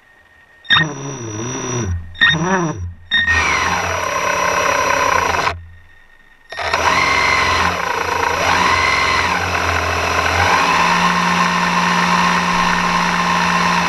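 Electric thruster motors of an underwater drone whining, their pitch sweeping up and down as they speed up and slow down. They switch on about a second in, cut out and restart a few times in the first half, then run steadily.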